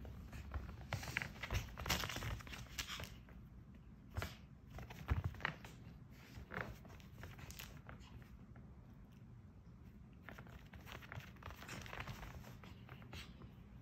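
Two Pomeranians, an adult and a puppy, scuffling at play on a rug: faint rustling, light paw scrabbling and mouthing noises with scattered small clicks, coming in bursts about a second in, around four to six seconds in, and again near the end.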